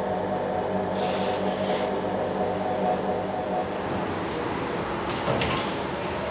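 Steady hum of industrial machinery in a factory hall, with a hiss about a second in and a few light knocks later.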